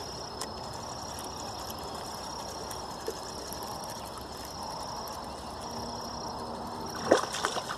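An insect trills in on-and-off stretches over quiet open-air background noise. About seven seconds in come a few louder splashes as a hooked fish, pulling the float, is brought in near the bank.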